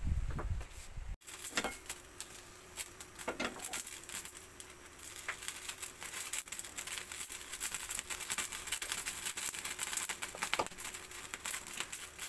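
Brief knocking on a wooden chopping block, then, after a sudden cut about a second in, cooking oil heating in a frying pan over a gas burner, crackling with many small pops.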